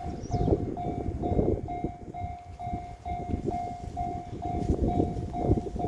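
Japanese level-crossing warning bell ringing, its electronic tone repeating evenly just under twice a second, with strong wind buffeting the microphone.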